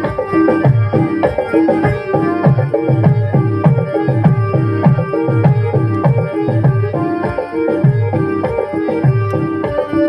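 Background music with a steady drum rhythm of about three strokes a second under sustained melody notes.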